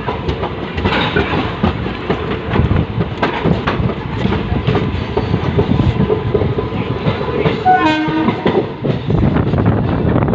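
Ambala–Old Delhi Intercity Express train moving along the track: a steady rumble with wheel clatter over the rail joints, and a brief pitched tone about eight seconds in.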